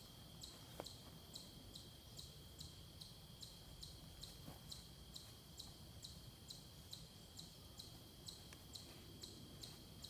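Faint insect chorus: a high chirp repeating evenly about three times a second over a steady high-pitched trill.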